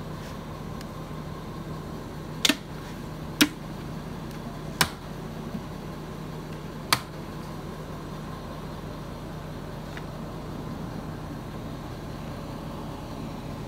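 Plastic latches on DeWALT organizer boxes snapping, four sharp clicks over about five seconds, over a steady low hum.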